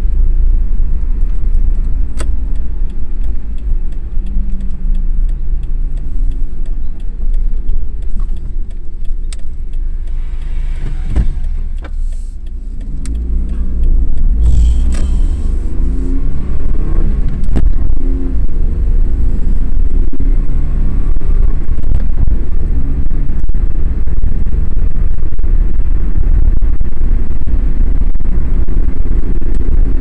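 Car engine and road rumble heard inside a moving car's cabin: a steady low rumble with an engine tone. About halfway through the engine eases off, then climbs again as the car picks up speed.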